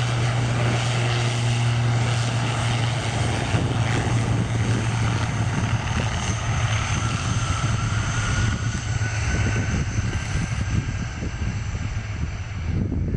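Turboprop aircraft's propellers droning with a steady low hum over broad engine and air noise, the drone weakening in the second half.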